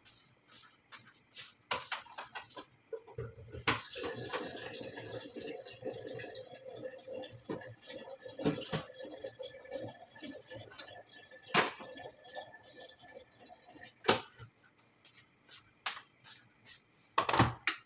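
Pot of chicken and vegetable stew bubbling as it simmers, with irregular sharp pops and a denser stretch of bubbling through the middle.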